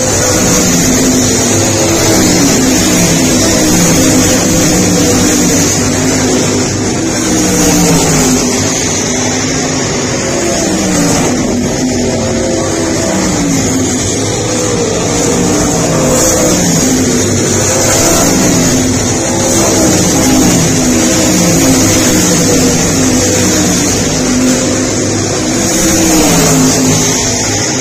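Several race car engines running together, their pitch rising and falling again and again as the cars accelerate and back off around the track.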